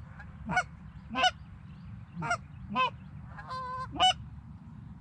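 Canada goose honks: about six short, loud honks with sharp breaks in pitch, one drawn out a little longer near the end.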